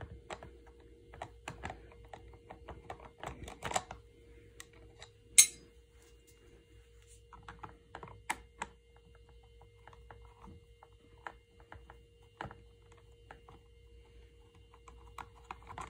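Screwdriver backing small screws out of the plastic handle of a Brother knitting machine carriage: scattered light clicks, scrapes and taps of metal on plastic, with one sharper click about five seconds in, when a loosened screw lands in a plastic lid.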